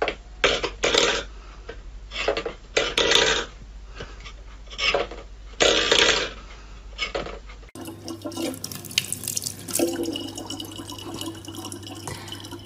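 A steel pet food bowl clattering against a wooden floor in a few separate knocks. From about eight seconds in, a thin stream of tap water pours steadily into a plastic bottle over a low steady hum.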